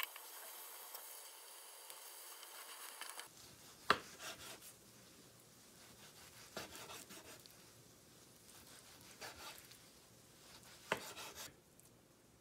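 A steady hiss from the egg omelette cooking in its pan for about three seconds, then a knife slicing through the rolled omelette. Each slice ends in a knock on the wooden cutting board, about four in all, and the first is the loudest.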